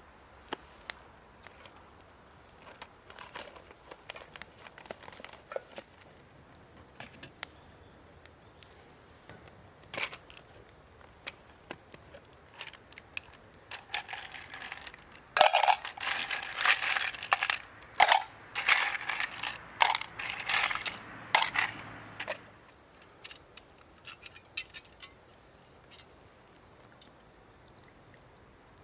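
Dry kindling at a bonfire crackling and snapping: scattered sharp clicks, then a dense run of crackling and crunching lasting about seven seconds from around the middle.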